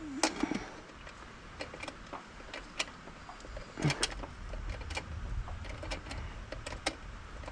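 Scattered sharp clicks and light knocks of hand tools and engine parts being handled, over a steady low rumble.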